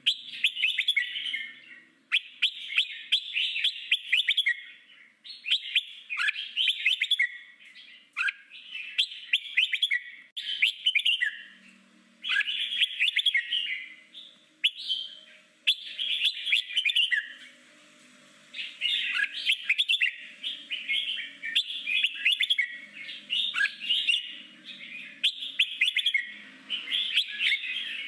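Red-whiskered bulbul singing: short, fast warbled phrases one after another with brief pauses, some ending in a quick downward note.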